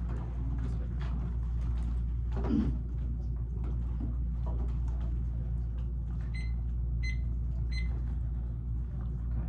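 A steady electrical hum with scattered small clicks and handling knocks. About six seconds in, an electronic device gives three short high beeps, evenly spaced about two-thirds of a second apart.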